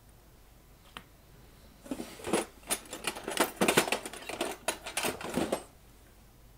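A single click, then about four seconds of quick, irregular clicking and rattling as tools, wire or small parts are handled at a workbench.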